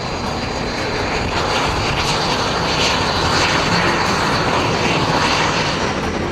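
Jet aircraft flying past, the engine noise building to its loudest midway and easing off toward the end.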